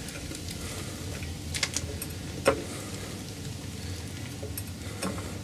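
A few light metal clicks and taps from handling the MGA's front suspension and jack as the coil spring is being compressed, the sharpest about two and a half seconds in, over a steady low hum.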